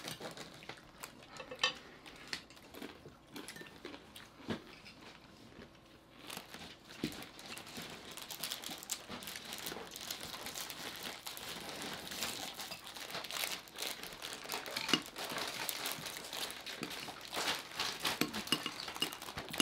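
Plastic snack packaging crinkling and rustling as it is handled, growing denser and louder from about six seconds in, with a few sharp clinks of spoons on plates.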